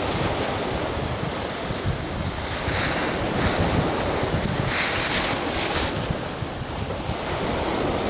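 Small sea waves breaking and washing up a gravelly beach, with two louder hissing washes about three and five seconds in. Wind buffets the microphone with a low rumble throughout.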